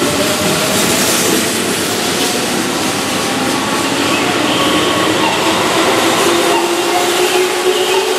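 Keihan Railway seven-car electric train running past along the platform. The cars rumble steadily, and a faint whine rises slowly in pitch over the second half.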